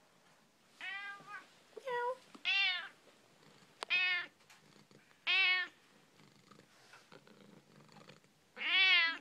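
Long-haired black cat meowing close to the microphone: about six short meows at uneven spacing, the last near the end the loudest.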